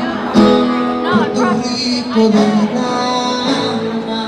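Music with a singing voice holding and bending long notes over instruments.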